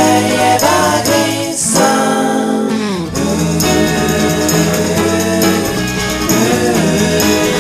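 Twee pop song: a voice singing over guitar and bass.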